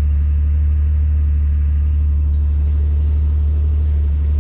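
Jeep Grand Cherokee engine running steadily, a constant low drone with no revving, as it crawls through deep mud.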